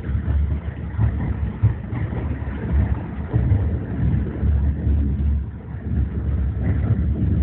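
Steady low rumble of a moving commuter train, heard from inside the passenger car, rising and falling unevenly in loudness.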